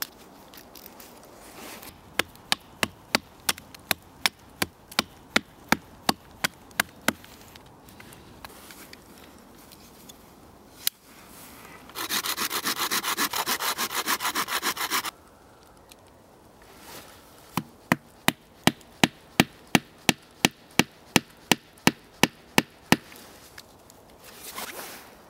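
A hatchet knocks at a stick in steady series of sharp wooden knocks, about two or three a second, shaping a wooden wedge and then tapping it into a crosscut-saw kerf. Midway there are about three seconds of loud, harsh rasping.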